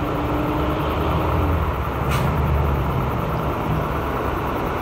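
Diesel engine of a semi-truck rumbling as it comes along the road, with a short hiss of air about two seconds in. A held tone fades out about a second and a half in.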